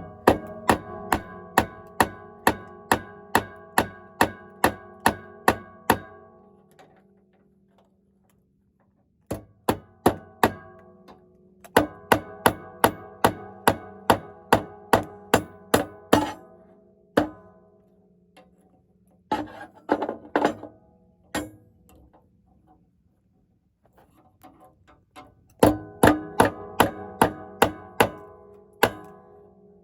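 Hand hammer beating a hot 3/8-inch rebar knife blank on the anvil, each blow ringing metallically. The blows come in steady runs of about two to three a second, with short pauses between the runs.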